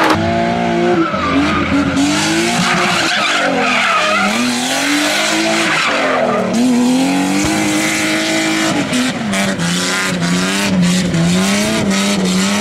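BMW E36 drifting on asphalt, its engine revving up and down several times as the throttle is worked, with the rear tyres skidding and squealing.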